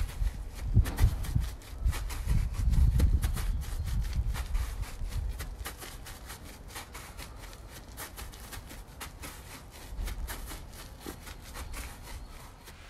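Quick, light footsteps and shoe scuffs on artificial grass as a child steps back and forth over a football, heard as many irregular sharp taps and scrapes. A low rumble is loudest in the first few seconds and then fades.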